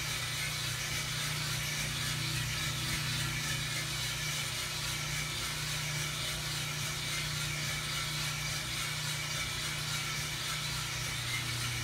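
US Roaster Corp 3-kilo drum coffee roaster running early in a roast with a charge of beans tumbling in the drum. Its drum motor, fan and gas burner make a steady low hum under an even rushing hiss.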